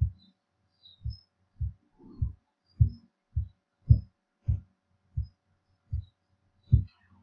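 A run of about eleven low, dull thumps at a slightly uneven pace, roughly one every half second to second.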